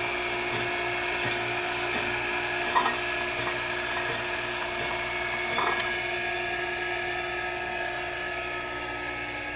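K.O. Lee tool and cutter grinder running, a steady motor and spindle whine, with two light knocks about three and six seconds in; it grows slightly quieter near the end.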